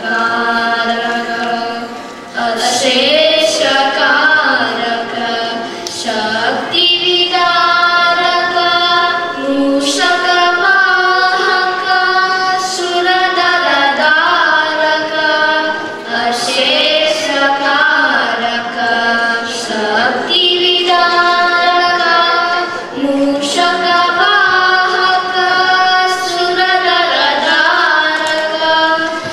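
Two children, a girl and a boy, singing a Ganesha bhajan together in Carnatic style, holding long notes with sliding ornaments between phrases.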